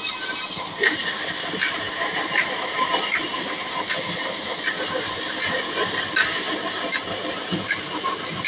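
A vehicle running with a steady hissing noise, broken by irregular clanks and rattles, often about one a second.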